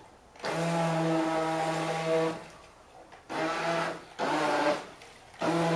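Radio-controlled toy speedboat's small electric motor whining in short bursts as the throttle is pressed and released: four runs of steady whine, the first about two seconds long, each starting and stopping abruptly.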